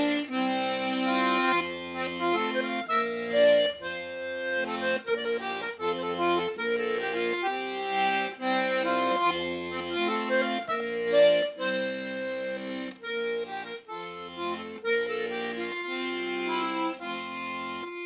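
Button accordion played solo: an instrumental break in a folk song, a melody over pulsing bass-and-chord notes at a steady pace, with no singing.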